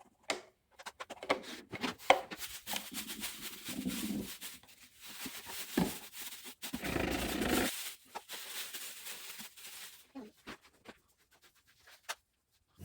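Soft close-up handling noises: scattered light taps and clicks with stretches of rubbing or wiping, the loudest a brief rub about seven seconds in.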